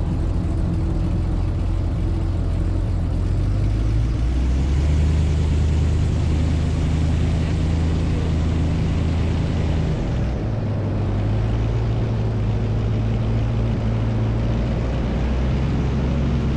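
Airboat's engine and large air propeller running, revving up about four seconds in and easing back down about ten seconds in.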